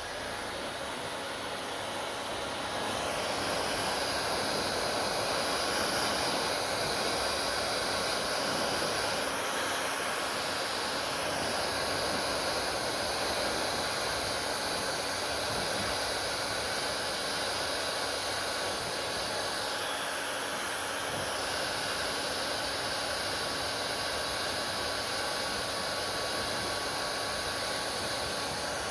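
Hair dryer running steadily, a continuous blowing hiss with a faint high whine. It grows a little louder over the first few seconds, then holds.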